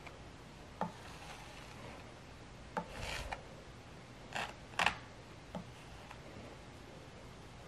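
Metal palette knife scraping acrylic paint across a canvas in a few short strokes, with light taps of the knife in between. The two loudest scrapes come close together a little past the middle.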